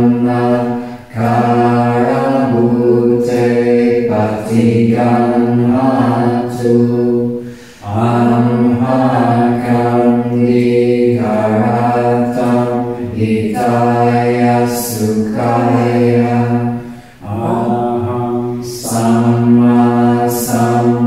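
Pali devotional chanting on a steady, low, near-monotone pitch, sung in long held phrases that break briefly for breath three times.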